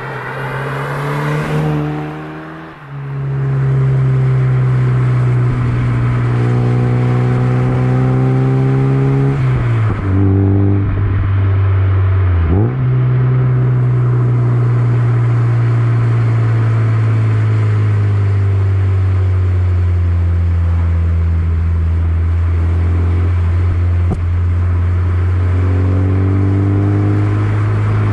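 Mazda MX-5 Miata's four-cylinder engine and exhaust: a brief pass-by swell, then a steady, loud engine drone under way. The pitch drops about ten seconds in and dips sharply and recovers a couple of seconds later, then holds steady.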